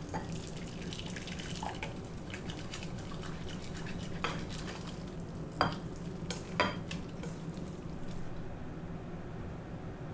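Ramen noodles and broth poured from a metal pan into a ceramic bowl, with a few sharp clinks against the bowl, the loudest about five and a half and six and a half seconds in, over a steady low hum.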